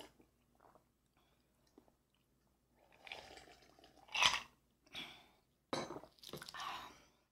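Close-miked gulps from a glass mug of iced drink, with ice shifting in the glass, then the mug set down on the table just before the end, followed by mouth sounds. The loudest sound is a sharp one about four seconds in.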